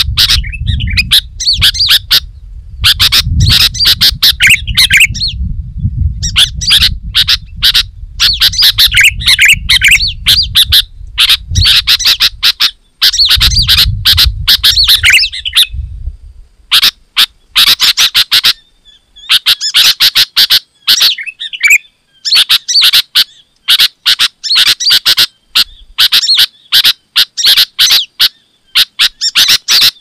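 Sooty-headed bulbuls singing loudly and rapidly: dense bursts of short, sharp chirping notes in phrases a second or two long, with short pauses between. A low rumble runs under the first half and then stops.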